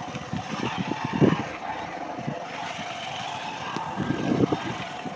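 Wind buffeting a handheld phone microphone in irregular low gusts, over a steady outdoor hiss; the strongest gusts come about a second in and again near the end.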